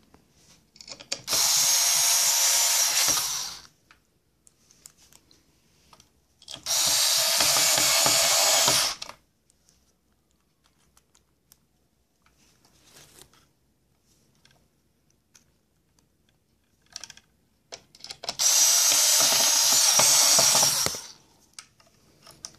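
Cordless screwdriver driving in the screws that hold a hoverboard's motherboard: three steady runs of about two and a half seconds each, with light clicks of handling between them.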